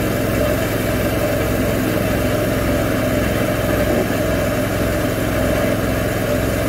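The engine of a DIY bandsaw mill running steadily at an even speed, with a low, regular pulsing beat.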